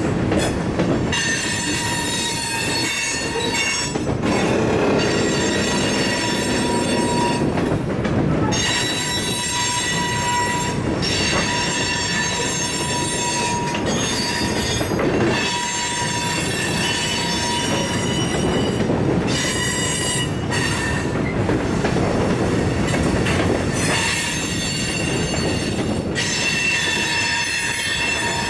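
Freight train of covered hopper cars rolling past, its steel wheels running on the rails with a steady rumble. High, ringing wheel squeal comes and goes every few seconds.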